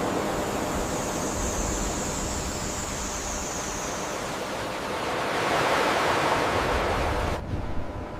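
A steady rushing noise that swells a little past the middle and cuts off sharply near the end.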